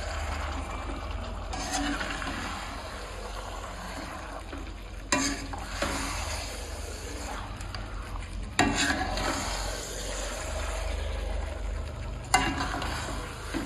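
A steel spoon stirring and turning chunks of raw meat coated in spice paste in an aluminium kadai, with three sharp clinks of the spoon against the pan.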